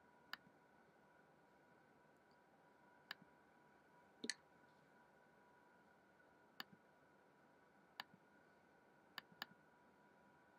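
Computer mouse clicking now and then, about seven clicks in all, each a sharp press followed by a softer release, over a faint steady tone.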